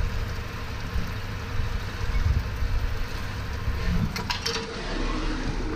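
Automatic drilling and chamfering machine running its cycle with a steady low hum. About four seconds in, a short burst of sharp clicks and hiss comes as a spindle feeds down to the part.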